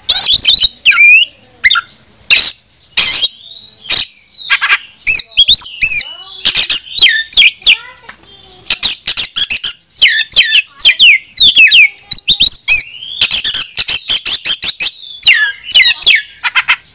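Oriental magpie-robin (kacer) singing loudly: a fast, varied run of whistled rising and falling notes mixed with harsh, scratchy notes, in short phrases with brief pauses. It is a rival-challenging song of the kind kept to provoke other magpie-robins into singing.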